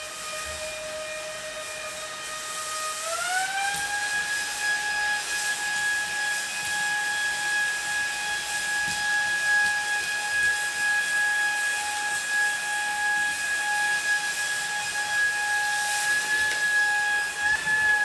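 Lacidoll handheld cordless wet-dry vacuum cleaner running: a steady high-pitched motor whine with airflow hiss. The whine rises to a higher pitch about three seconds in and holds there.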